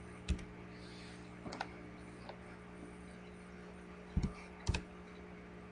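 A few sparse, sharp clicks from computer keys and mouse buttons, over a steady low electrical hum.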